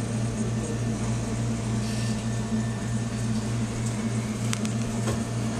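Steady low machine hum, with a couple of faint ticks near the end.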